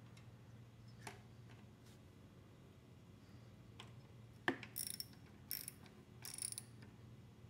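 Hand socket ratchet clicking in three short bursts in the second half, after a single sharp knock, as a bolt on a small engine is turned. A few light clicks of parts being handled come earlier.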